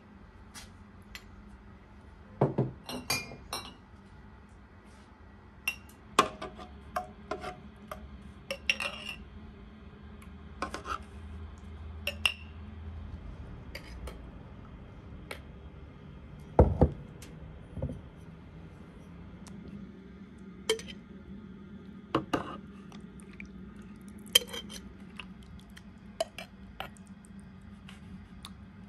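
Metal spoon clinking against a glass jar and a large metal basin as quince jam is spooned into jars: scattered, irregular sharp clinks, with a few louder knocks among them.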